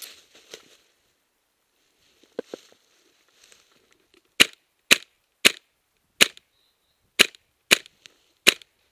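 An airsoft gun fires seven single shots, each a sharp crack, spaced about half a second to a second apart over roughly four seconds. Before the shots there is light rustling in dry leaves.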